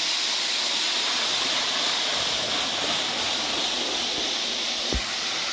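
Roco H0 model high-speed trains (ICE Velaro and ÖBB Railjet) running at speed: a steady rushing hiss, with one short knock near the end.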